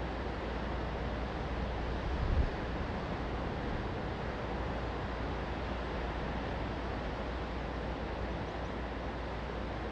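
Steady ocean surf and wind, with wind rumbling low on the microphone and a brief low bump a little over two seconds in.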